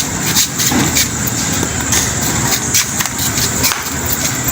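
Steady street traffic noise under irregular sharp slaps and taps of hands on a head and neck during a head massage.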